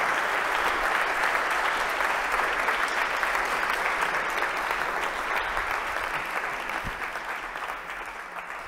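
Large lecture-hall audience applauding, a dense steady clapping that slowly dies away over the last few seconds.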